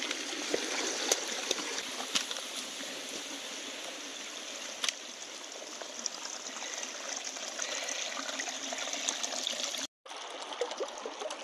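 Cold spring water trickling and splashing down over mossy rocks, with small scattered drips. After a short break near the end, a shallow stream runs over rocks: the upper North Santiam River.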